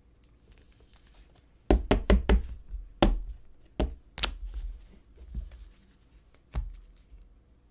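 Trading cards and a rigid plastic toploader tapped and set down on a tabletop as sharp knocks: a quick run of four about two seconds in, then a few single knocks spread out.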